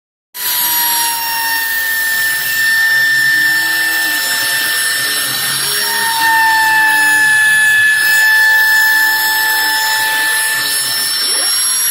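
Homemade CNC router's spindle running with a steady high whine, while stepper motors whir in repeated rising and falling sweeps as the machine's axes move.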